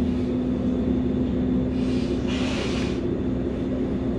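Steady low rumble and hum of the Transwa WDA-class diesel railcar, heard from inside the carriage. A brief hiss comes about two seconds in.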